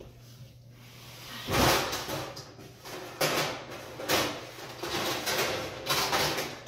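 Someone rummaging through kitchen cabinets: a string of loud, clattering knocks and bangs that begins about a second and a half in.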